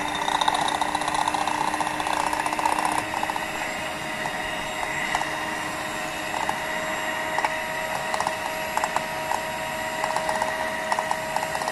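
Electric hand mixer running steadily with a motor whine, its twin wire beaters whipping raw eggs in a glass bowl, with scattered sharp clicks throughout.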